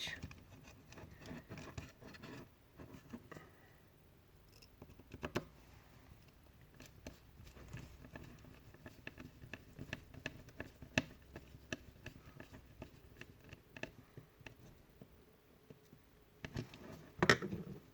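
Faint, scattered clicks and scratches of a small screwdriver driving two small screws into the on/off switch wiring inside a Wahl Magic Clip clipper's plastic housing, with a louder click near the end.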